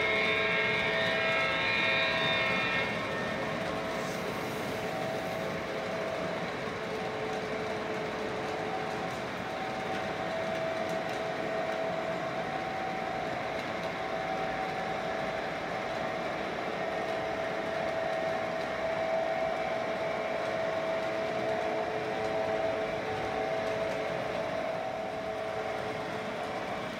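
O-gauge model SD60M diesel locomotive's onboard sound system: a horn blast ends about three seconds in, then the simulated diesel engine drones steadily. Under it runs the rolling rumble of the train's wheels on the three-rail track.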